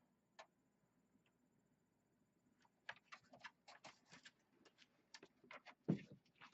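Faint, irregular small clicks and taps of hands working cables and parts inside a PC case, starting about two and a half seconds in, with one duller knock near the end.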